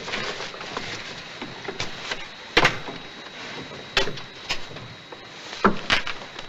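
A train compartment door shutting with a sharp knock about two and a half seconds in, followed by a few lighter knocks and clacks as a coat is hung on a hook beside it, over a steady hiss.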